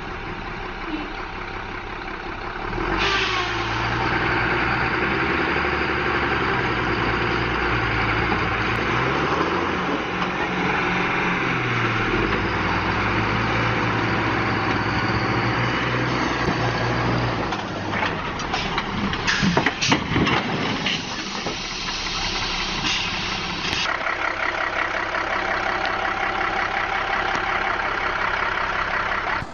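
Heavy logging truck's engine running hard under load in mud, getting louder about three seconds in. About two-thirds of the way through comes a cluster of loud crashes and knocks as the log-laden truck tips over onto its side.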